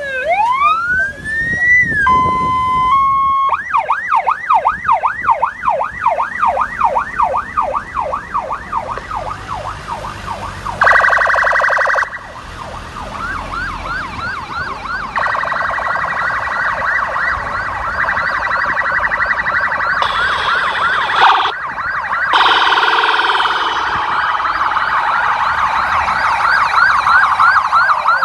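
Police vehicle sirens. One starts on a slow wail, holds a steady tone for a moment, then switches to a rapid yelp of repeated quick sweeps. Later a brief buzzy warble and further sirens join, so several sirens sound over one another.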